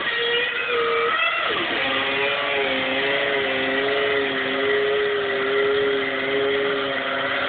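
Heavily distorted electric guitar holding long, slightly wavering notes, with one note sliding down about a second and a half in.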